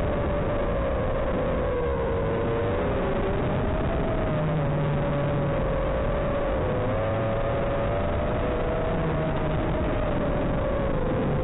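5-inch FPV racing drone's electric motors and propellers whining in flight, the pitch wavering up and down with throttle, under a steady hiss.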